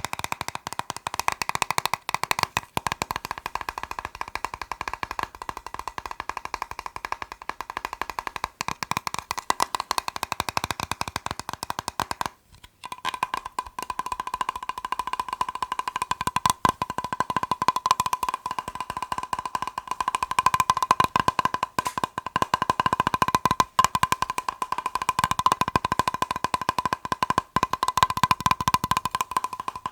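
Fast tapping on a plastic box: a dense, continuous stream of small clicks with a steady ringing tone beneath them. The tapping breaks off briefly about twelve seconds in, then resumes with the ring a little stronger.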